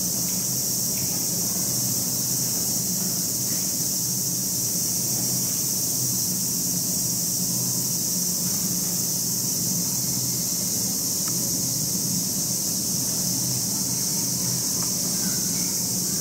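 A steady, high-pitched drone of cicadas singing in chorus, unbroken throughout, over a low steady mechanical hum.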